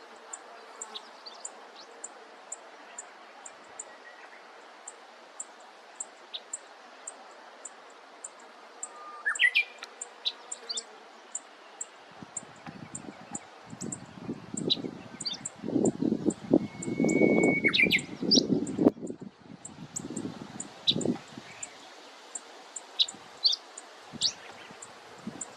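A bunting, which the uploader takes for a black-faced bunting, giving short, sharp, high call notes scattered throughout, with a couple of longer rising notes. Under it runs a faint, regular high ticking about two to three times a second, and in the middle a stretch of loud low rumbling noise.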